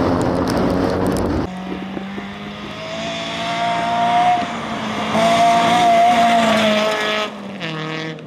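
Rally car engine running at high revs, with a sharp cut to a second car about one and a half seconds in. The second engine climbs in pitch, drops briefly at gear changes, and fades near the end as the car pulls away.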